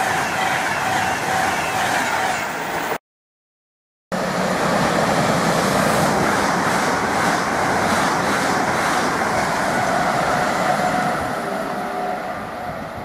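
Express trains passing at speed: a Class 390 Pendolino electric train rushes by and cuts off abruptly about three seconds in. After a second of silence, a long train of coaches rushes past with a run of regular wheel clicks, then fades toward the end.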